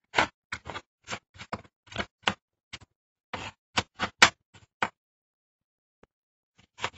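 Kitchen knife chopping raw green papaya into small cubes on a plastic cutting board: quick, sharp knocks of the blade hitting the board, about three a second, stopping about five seconds in and starting again near the end.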